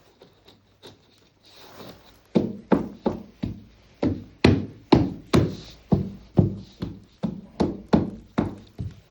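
Background music with a steady electronic drum beat, about two and a half beats a second, coming in about two seconds in.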